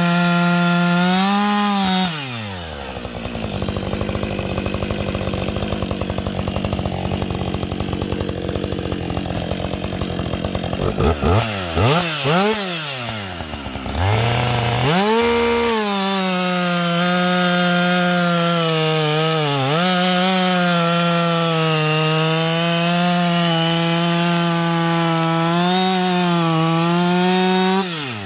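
A 60cc professional two-stroke chainsaw cutting at full throttle, then dropping to idle about two seconds in. After several quick throttle blips it revs back up and holds steady high revs through a second cut, with small dips under load. It drops off to idle near the end.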